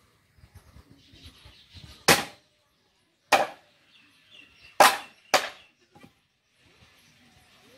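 Machete blade chopping green bamboo: four sharp, ringing chops, the first about two seconds in and the last two close together, with quieter handling knocks before them.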